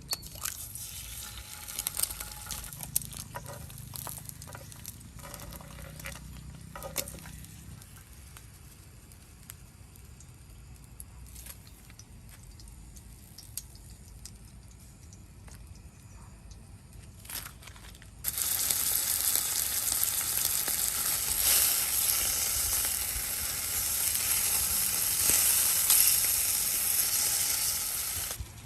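Food frying in a hot pan: scattered light clatter at first, then about two-thirds of the way in a sudden loud, steady sizzle as food goes into the hot oil.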